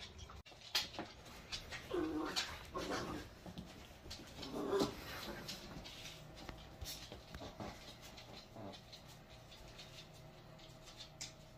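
A pet's short cries, repeated several times, heard faintly among a few light clicks.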